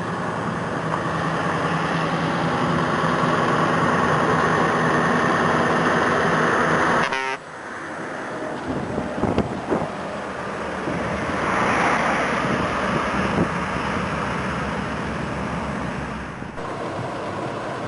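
Scania T143 470 V8 engine running loud through a straight exhaust with no muffler, steady for about seven seconds, then dropping off suddenly to a quieter run with a brief swell near twelve seconds.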